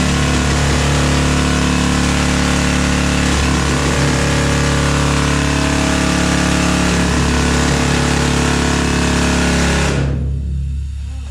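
Hand-held rock drill hammering into the rock face, running loud and steady, then cutting off suddenly about ten seconds in.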